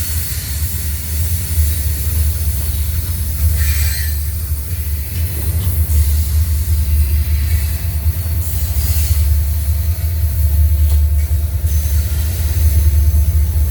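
Train rolling past with a steady low rumble, and brief high wheel squeals about four seconds and nine seconds in.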